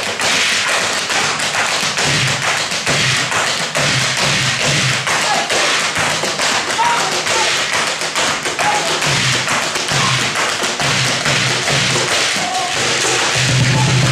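Rapid heel-and-toe taps of several dancers doing Afro-Peruvian zapateo in hard shoes on a wooden dance board, a dense, continuous clatter. A low cajón beat thumps underneath and grows stronger near the end.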